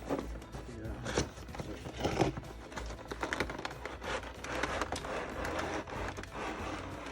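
Plastic packaging and cardboard being handled, with irregular crinkling, scraping and small clicks, the loudest about one and two seconds in. Faint background music runs under it.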